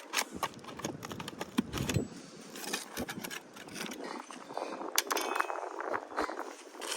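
Hands-on roofing work: repeated clicks, scrapes and light metallic clinks as tools and roofing materials are handled, with a sharp click about five seconds in.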